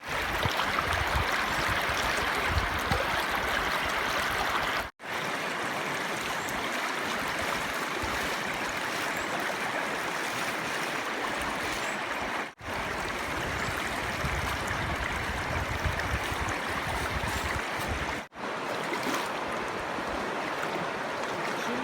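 Steady rush of a flowing stream, broken three times by brief sudden dropouts where clips are joined.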